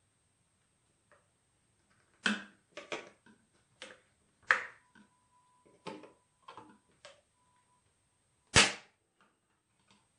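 Sharp, irregular clicks and snaps of a No. 11 X-Acto blade cutting clear, hard styrene window parts free of their sprue, about nine in all, the loudest near the end.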